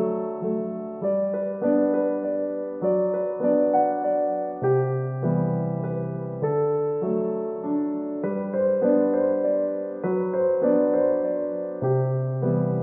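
Background music: a slow, gentle piano piece, its notes struck and left to fade, one after another about every second.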